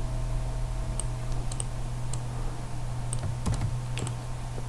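Computer mouse and keyboard clicks: about ten sharp, irregularly spaced clicks over a steady low hum.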